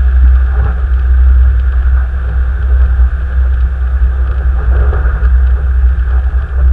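Car driving, a steady low rumble of engine and road noise picked up inside the vehicle by a dash camera.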